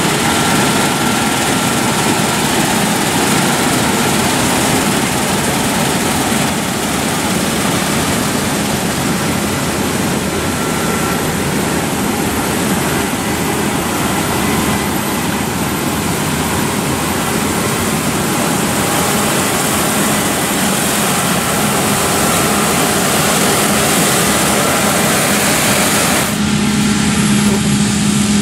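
Claas Lexion 7500 Terra Trac combine harvester running under load while threshing soybeans with its Convio 930 header: a loud, steady blend of engine and threshing noise. Near the end the sound changes, the hiss thins out and a low steady tone stands out more.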